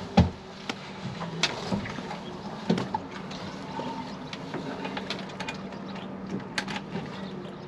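Irregular light clicks and knocks of a small ring spanner working the cowling bolts on an Evinrude E-Tec 90 outboard, about ten in all, over a faint steady hum.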